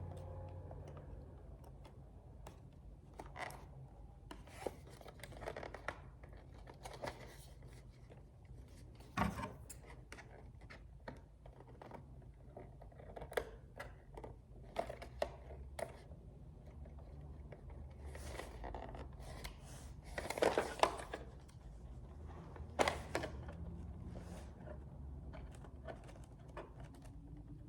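A sticker being picked and peeled off a VHS tape case by fingernail: many scattered small scratches, scrapes and clicks, with a louder flurry about twenty seconds in.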